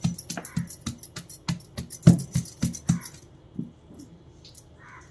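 Roasted peanuts wrapped in a cloth being pressed and rolled on a stone counter to rub their skins off: a quick run of knocks and crunches, about three a second, that stops about three seconds in, then softer rubbing and rustling of the cloth.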